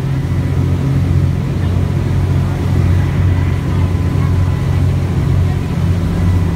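A boat's engine running steadily under way, a deep even drone, with the rushing of its churning wake and a faint steady whine above.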